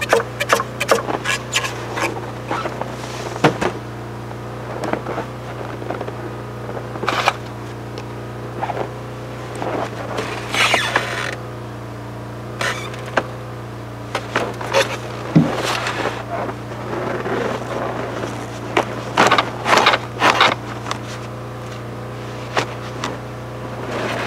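Wooden 2x4s and scrap boards knocking and clattering against one another as they are pulled out and handled, many separate sharp knocks through the whole stretch, over a steady low hum.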